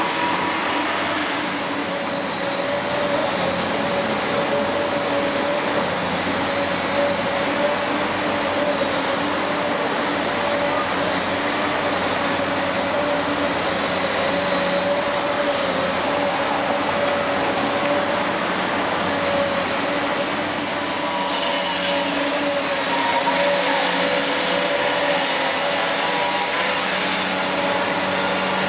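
Heavy excavators' diesel engines running steadily: a constant machine drone with a steady whine over it and a faint high whistle.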